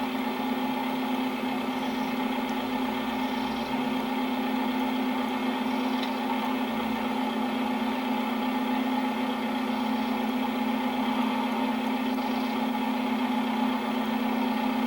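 A car engine running at a steady speed: a constant, even drone with no change in pitch.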